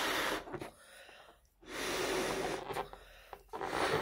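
A latex balloon being blown up by mouth: hard, noisy breaths blown into the balloon, one ending shortly after the start and a long one in the middle, with quieter breaths drawn in between and another blow starting near the end.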